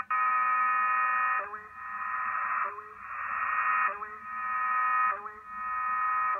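Shortwave numbers station G06 heard through a WebSDR receiver: a flat, monotone voice reads German numbers, one word about every 1.2 seconds, with a thin, narrow radio sound. The uploader suspects the transmission is a null message, meaning no traffic.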